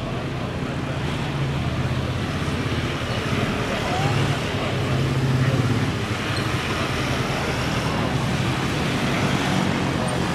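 Steady rumble of a Boeing 787 Dreamliner's jet engines on final approach with its gear down, mixed with road traffic noise, swelling slightly about halfway through.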